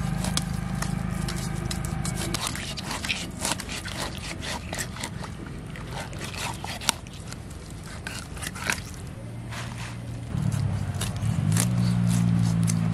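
Knife scraping the scales off a whole rohu fish and cutting into its body: a quick run of short, scratchy strokes. A low steady drone sits underneath for the first couple of seconds and comes back near the end.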